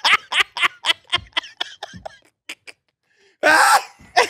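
People laughing hard at a joke: a run of rapid laughing pulses that fade out over a couple of seconds, then a loud fresh burst of laughter near the end.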